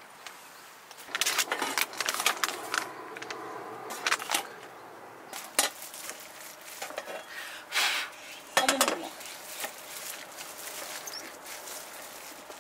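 Irregular clinks and clatters of metal dishes and utensils being handled, then a stainless steel bowl knocking on a camp table while flour dough is kneaded in it by a gloved hand. A few louder single knocks stand out in the second half.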